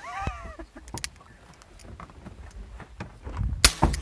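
One suppressed shot from an M1895 Nagant revolver fitted with a suppressor, a sharp crack with a short ring, about three-quarters of the way in. The gas-seal cylinder lets no gas escape at the cylinder gap, so the shot is quiet for a revolver. Before it comes a brief vocal exclamation and a few light clicks.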